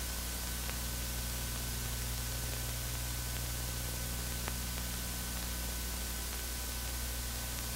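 Steady hiss and low hum of an old film soundtrack, with two faint clicks, one about a second in and one past the middle; no other sound.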